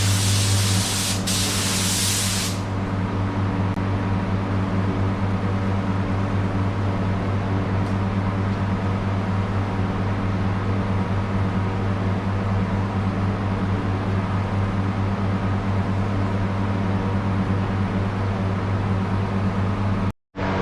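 Iwata WS-400 spray gun hissing as it sprays clear coat, stopping about two and a half seconds in. A steady machine hum runs underneath throughout.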